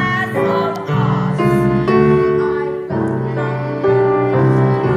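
Live pit orchestra music for a stage musical, piano prominent, playing sustained chords that change about once a second, with some singing over it.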